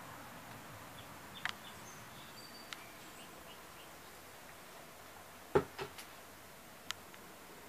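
Quiet room tone with a faint steady hiss, broken by a few sharp clicks and knocks. The loudest is about five and a half seconds in, followed by two smaller ones. A few faint, short, high chirps come in the first three seconds.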